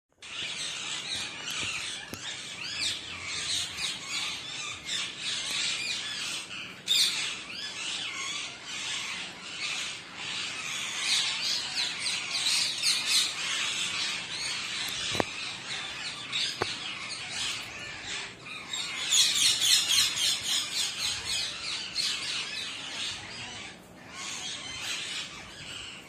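Male rose-ringed parakeet calling: a long run of short shrill squawks and chirps, loudest in stretches about eleven and nineteen seconds in.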